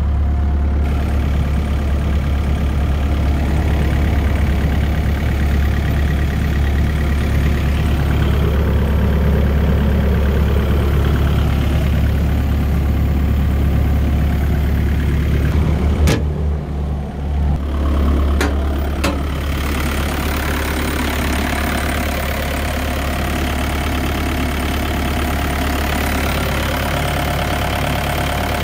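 Bobcat 331G mini excavator's diesel engine idling steadily, with a few brief clicks a little past halfway.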